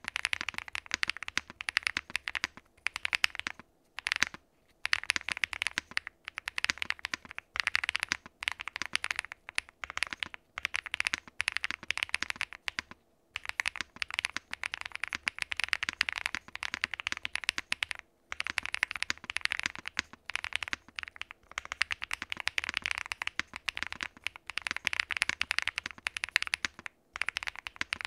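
Fast, continuous typing on a QwertyKeys QK100 gasket-mount mechanical keyboard fitted with lubed and filmed Punkshoo x Gateron Root Beer Float switches on a POM plate: a rapid, dense run of keystroke clacks, broken by a few brief pauses.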